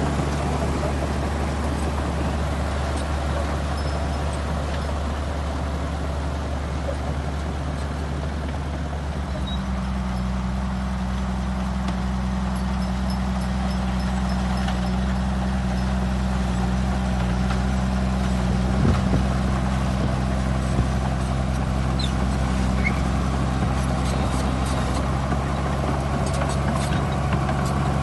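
Diesel engine of a Shantui crawler bulldozer running steadily as it pushes a load of wet soil. Its low engine note changes about nine seconds in and then holds, with a few brief clicks later on.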